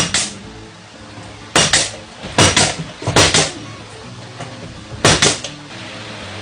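Hammer blows on wood, struck in quick pairs with a pause between each pair, about five pairs in all, over soft background music.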